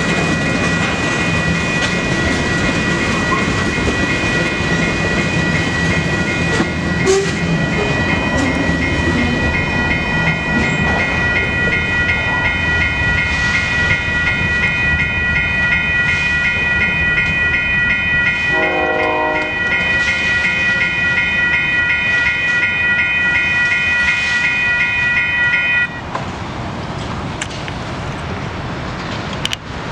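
Electronic railroad crossing bells ringing in a rapid, even pulse over the rumble and wheel clatter of a passing freight train. The train noise dies away about a third of the way through, a short horn sounds about two-thirds through, and the bells cut off abruptly near the end as the crossing deactivates.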